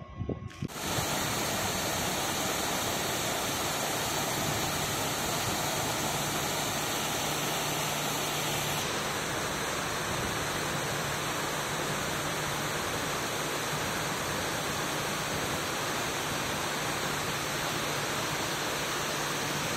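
Steady rushing of a river in full flood, an even hiss-like water noise that shifts slightly about nine seconds in.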